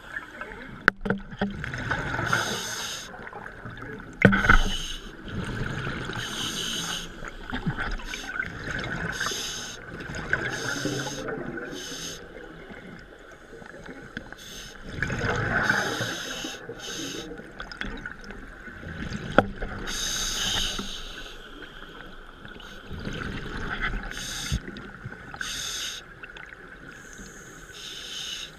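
Scuba diver breathing through a regulator underwater: repeated hissing breaths and bubbling exhalations every second or two. A steady tone runs underneath, with a few sharp clicks.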